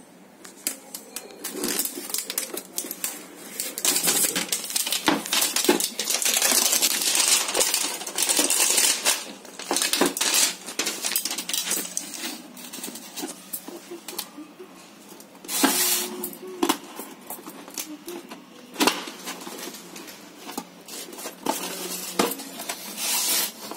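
Hands unwrapping and opening a shrink-wrapped cardboard box of poster paints: the plastic wrap crinkles and the cardboard rustles, with many sharp clicks and clinks. The handling is busiest from about four to nine seconds in, with another loud burst around sixteen seconds.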